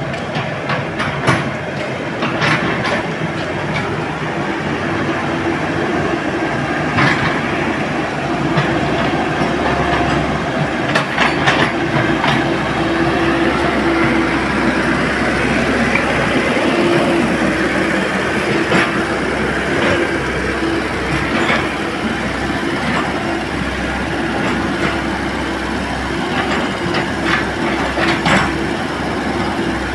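Komatsu hydraulic excavator working: a steady engine hum under irregular metallic clanks and knocks, with some metal squealing.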